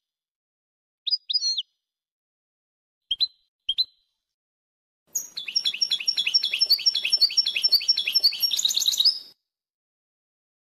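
European goldfinch song: two short double chirps, then two brief notes, then about four seconds of fast twittering built from rapidly repeated falling notes, cutting off abruptly.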